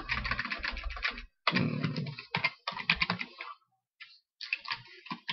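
Typing on a computer keyboard: quick runs of keystrokes with short pauses between them, as a name is keyed into a text field.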